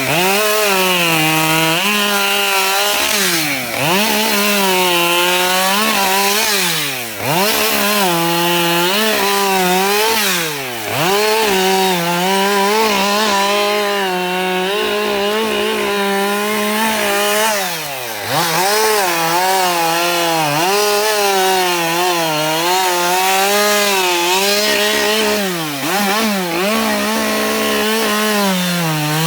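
Husqvarna 572XP two-stroke chainsaw running at high revs while cutting through wood. Its pitch dips sharply and climbs back several times as the engine loads up and the throttle is let off.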